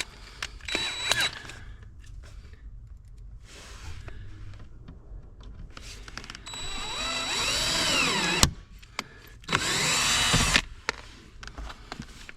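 Power drill boring a pilot hole, run in bursts. A short burst comes near the start. About six seconds in comes a longer run of about two seconds, with the motor's pitch rising and falling, which cuts off sharply. About a second later comes another short burst.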